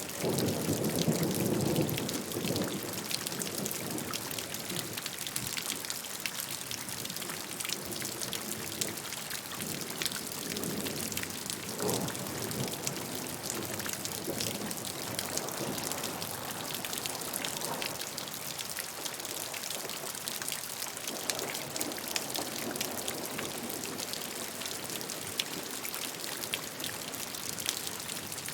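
Steady rain, with many individual drops landing as fine crisp ticks over an even hiss, and a louder, deeper swell in the first two seconds.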